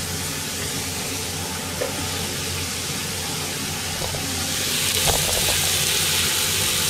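Bone-in chicken thighs and vegetables sizzling in a pan on the stove: a steady hiss that grows louder about halfway through, with a few light knocks.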